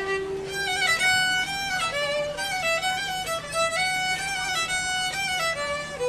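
Background music: a violin or fiddle playing a melody of held and stepping notes.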